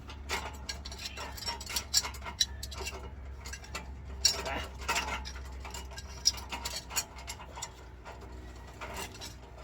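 Irregular small metallic clicks and clinks of Cat Clamp catalytic converter lock hardware being handled and hand-threaded onto the exhaust pipe.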